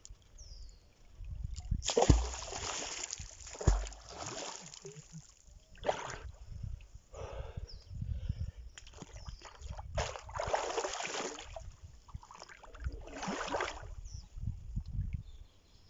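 Water sloshing and splashing in repeated irregular bursts as a swimmer moves at the surface close by.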